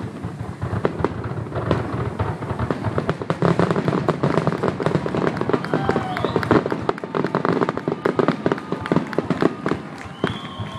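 Fireworks display going off: a rapid, dense run of popping and crackling bangs that thickens a few seconds in and stays thick almost to the end.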